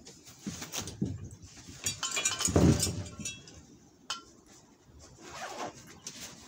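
Gear being rummaged in a backpack: rustling fabric and handled items, with a few light metallic clinks and a heavier knock about two and a half seconds in.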